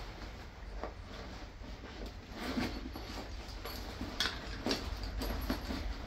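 Nylon carry bag being handled: fabric rustling, with scattered light clicks and clinks as metal carabiners and a pulley are pushed into its pouches.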